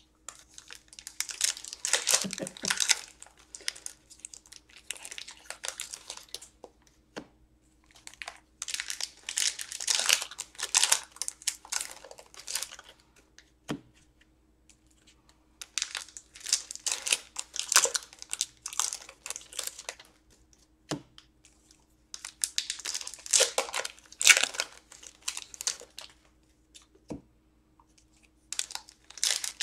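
Foil wrappers of Upper Deck hockey card packs being torn open and crinkled, in several bursts a few seconds long with short pauses between. A light tap sounds in most of the pauses.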